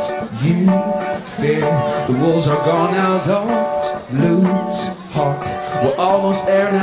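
Live acoustic music: a small acoustic guitar plucked and strummed, with a man's voice singing a bending melody over it.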